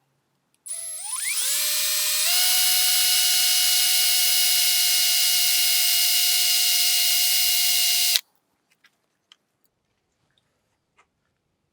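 Electric drill with a 1/16-inch bit, lubricated with motor oil, drilling into a broken bolt in an outboard engine block. The motor spins up in a rising whine about a second in, runs at a steady high whine for about six seconds, then stops abruptly, followed by a few faint ticks.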